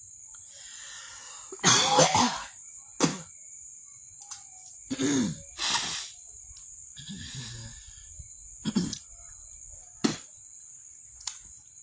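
A woman coughing and clearing her throat in a run of short harsh bursts, the loudest about two seconds in, because an insect has flown into her mouth.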